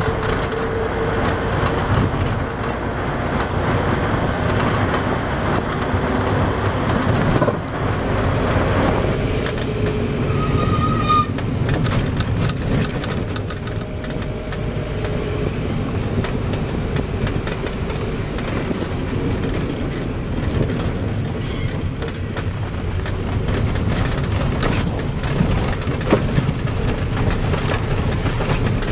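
Steady road and engine rumble heard from inside a moving road vehicle, with frequent small clicks and rattles.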